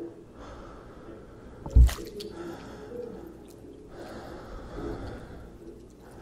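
Wet mouth sounds and breaths from a large dog's open jaws, with a sudden low thump a little under two seconds in.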